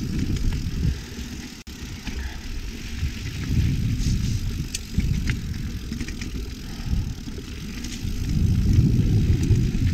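YT Capra mountain bike riding down a rough trail: a surging low rumble of wind and tyres, with scattered sharp clicks and rattles from the bike over roots and rocks, growing louder near the end.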